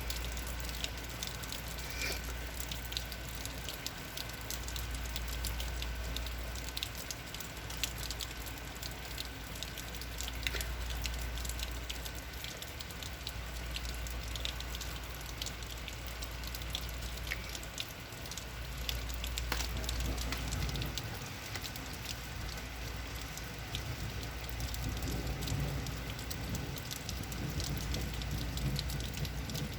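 Rain falling steadily, with a dense patter of individual drops hitting surfaces. A low rumble swells and fades every few seconds underneath.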